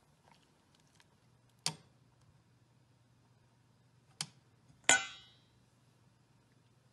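Wooden chopsticks knocking against a metal cooking pot three times, over a faint low hum. The third knock comes soon after the second, is the loudest, and leaves a short metallic ring.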